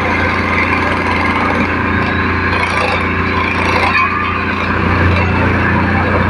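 A small engine running steadily at an even speed, a constant low hum.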